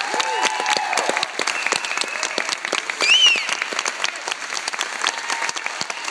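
Audience applauding with scattered voices calling out; the loudest is a single high cry that rises and falls about three seconds in.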